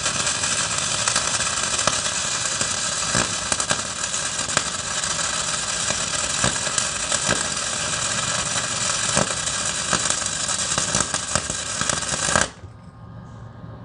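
Electric arc welding on a cast-iron tractor mount: the arc crackles and spatters steadily with sharp pops, then cuts off suddenly near the end, leaving a faint steady hum.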